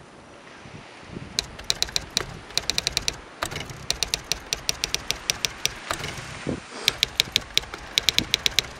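Typewriter keys striking in quick runs of clicks, with short pauses between the runs, starting about a second and a half in and stopping near the end, over a faint steady hiss.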